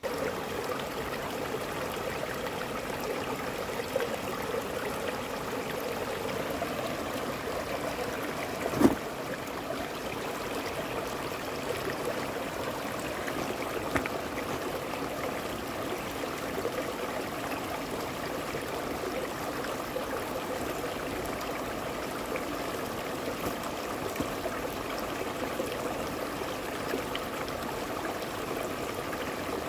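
Shallow stream rushing and trickling steadily over boulders below a small dam spillway. A single sharp thump stands out about nine seconds in, and a footstep on the rocks knocks briefly about halfway through.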